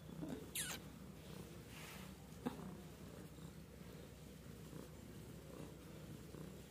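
A cat purring steadily, a low, even rumble. A brief sharp noise cuts in about half a second in, and a short click about two and a half seconds in.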